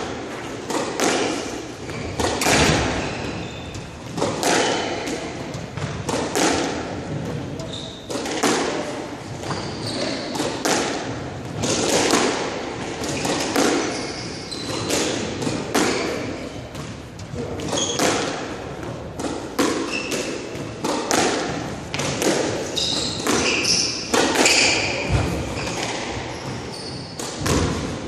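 Squash rally: the ball is struck by racquets and smacks against the court walls in a quick run of sharp hits, roughly one a second. Short high squeaks of court shoes on the hardwood floor sound between the hits.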